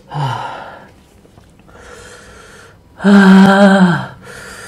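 A man breathing hard through his mouth, with a short falling groan at the start and a loud, drawn-out groan about three seconds in, from the burn of a Paqui One Chip Challenge chili chip.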